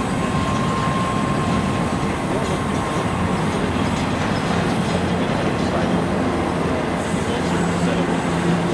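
Empty double-stack intermodal well cars of a freight train rolling past on a curve: the steady rolling noise of steel wheels on rail. A thin, faint wheel squeal fades out about three seconds in.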